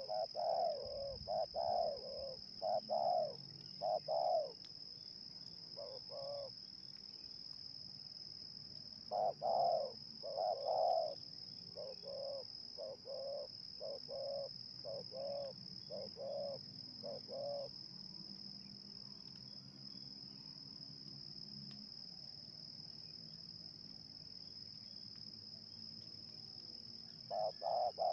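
Spotted doves cooing in repeated low phrases: a run of calls in the first few seconds, one near six seconds, another pair about ten seconds in, a longer run from about twelve to seventeen seconds, then more near the end. A steady high-pitched insect drone runs under the calls.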